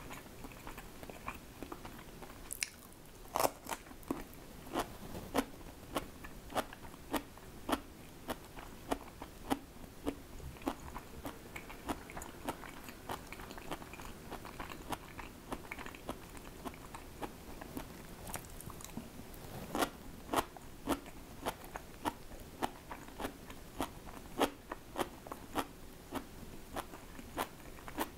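Close-up chewing of crunchy food, a crisp crunch about twice a second, with louder crunches about three seconds in and again around twenty seconds in.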